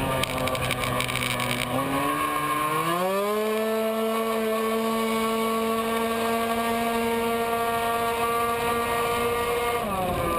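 Tuned racing scooter's engine at full throttle, heard from on board: its note climbs about two seconds in to a high, steady pitch that holds for several seconds, then falls near the end.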